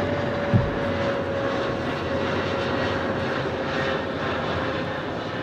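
Airliner engines running on approach, a steady rushing noise with a whine that drifts slowly lower in pitch. There is a brief low thump about half a second in.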